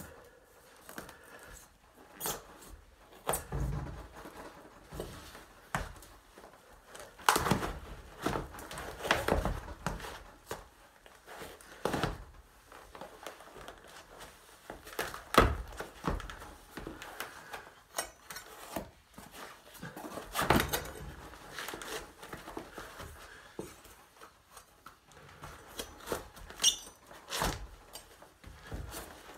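Knife being worked into a canvas sneaker, with irregular scrapes, knocks and thuds as the blade cuts and the shoe is pulled at and handled.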